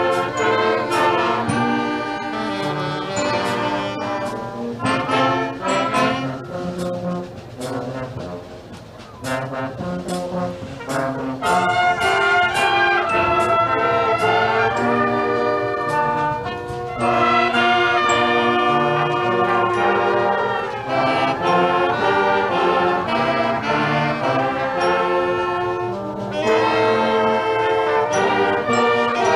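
Brass ensemble playing slow, sustained chords, with sharp clicks throughout; the music drops quieter for a few seconds about eight seconds in.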